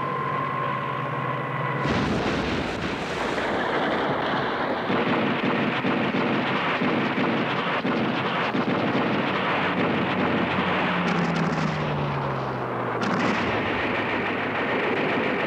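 Battle sound over wartime air-attack footage: a steady hum gives way abruptly, about two seconds in, to dense, continuous anti-aircraft gunfire mixed with aircraft engine noise. Near the end a lower engine note falls slightly in pitch.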